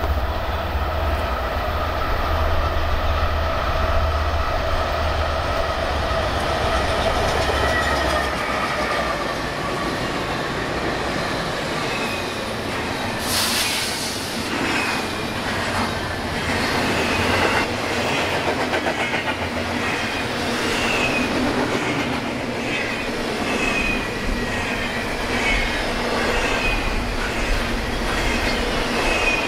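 BNSF intermodal freight train passing close by, with a steady rail roar and wheels knocking over the rail joints. A low rumble fades out about eight seconds in, and a sharp burst of noise comes about thirteen seconds in. From then on the wheels give short high squeals again and again.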